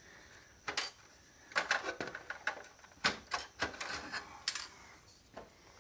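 Irregular sharp clicks and light clatter of circuit boards and small hard electronic parts being handled and set down.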